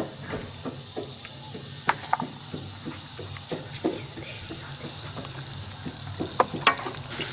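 Shrimp grilling on a grill pan over a portable butane stove: a faint sizzle with scattered, irregular pops and crackles. Near the end the sizzling suddenly becomes much louder.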